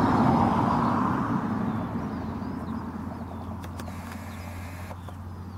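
A motor vehicle going past, its rumble loudest at the start and then fading away, with a steady low hum underneath.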